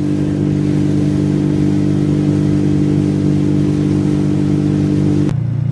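Motorboat engine running steadily at speed, a loud even hum with a hiss of wind and water over it. Near the end it changes abruptly to a lower, duller engine hum.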